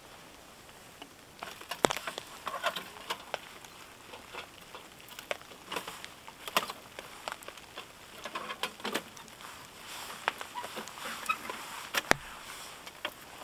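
Camping gear being handled close by: irregular rustling with scattered sharp clicks and knocks, the sharpest about two seconds in and near the end.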